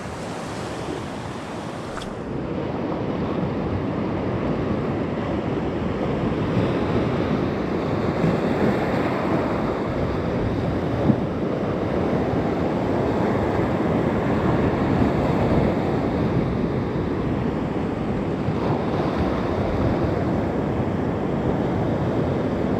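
Waves breaking and washing on the beach, with wind on the microphone. The surf builds over the first few seconds and then runs steadily.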